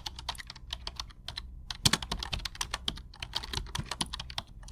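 Rapid, irregular clicks and taps, several a second, with a faint steady low hum beneath.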